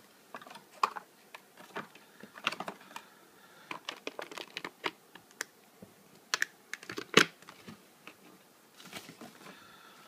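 Clear plastic blister packaging crackling and clicking under the hands as a coiled USB cable is handled and lifted out of it: irregular small clicks, with a sharper crack about seven seconds in.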